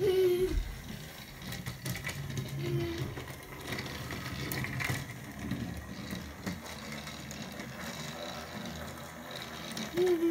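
A Thomas & Friends toy train running along its track: a steady whir from its small geared motor, with a few light clicks.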